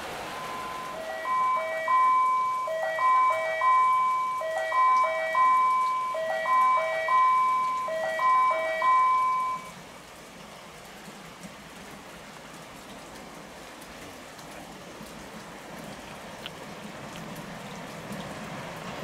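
Station platform train-approach chime: a short electronic melody repeated about four times over, stopping abruptly about ten seconds in, signalling an oncoming train. After it, the low rumble of the approaching train slowly grows.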